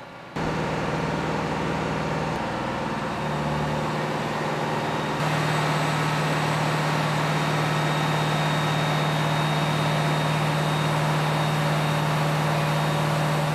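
Tractor engine running steadily while its hydraulic pump delivers oil through the spool valves into a test bench for a hydraulic output measurement. A constant low hum that steps louder twice in the first five seconds.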